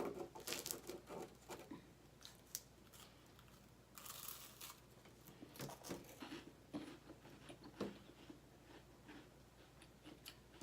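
Faint crunching and crackling of Goya cream-filled wafers being bitten and chewed, mixed with light crinkling of the wrapper.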